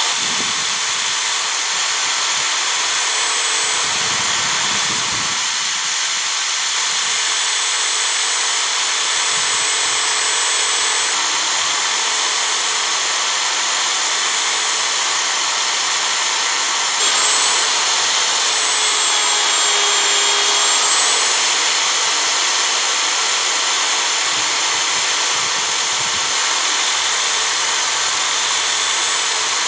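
A small high-speed power tool running steadily with a high whine over a rushing hiss, its pitch dipping slightly now and then as it is loaded.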